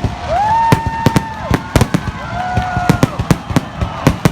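Fireworks display: rapid, irregular sharp bangs and cracks several times a second. Two long held high tones sound over them, each rising at the start and falling away at the end.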